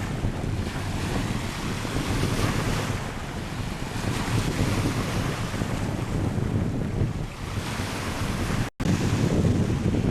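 Strong sea wind buffeting the microphone in a low rumble over breaking surf on a beach. The sound drops out for an instant about nine seconds in.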